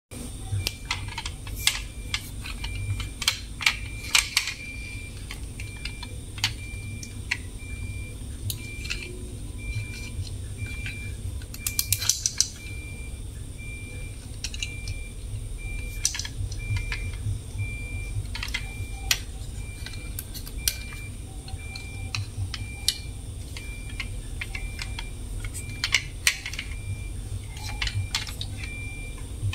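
Clicks and light knocks of plastic toy trucks being handled, turned over and set down, scattered irregularly, over a steady low hum and a faint high tone that pulses at a regular pace.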